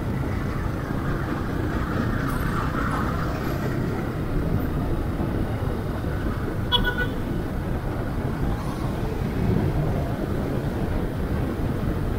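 Motorcycle riding along a street in traffic, its steady low rumble heard from the rider's camera, with a short vehicle horn toot about seven seconds in.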